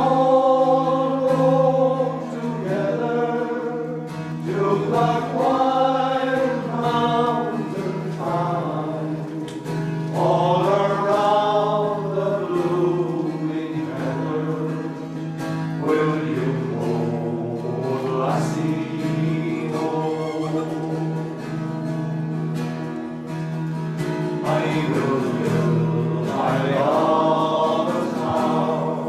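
A choir singing a slow song in sustained phrases over a steady, held low accompanying note.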